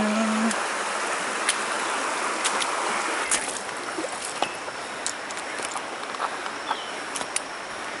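Shallow stream water running over stones, with scattered clicks and crunches of footsteps on rocks, gravel and dry stems along the bank. The running water is louder for the first three seconds or so, then softer.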